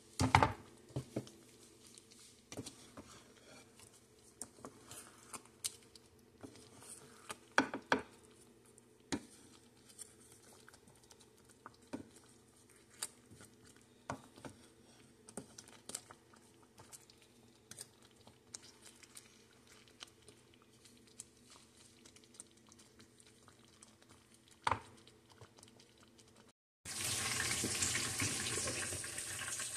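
Gravy with pork chops being stirred in a metal pan with a wooden spoon: scattered soft knocks and scrapes of the spoon against the pan over a faint steady hum. Near the end a sudden cut brings a much louder steady hiss of food cooking in the pan.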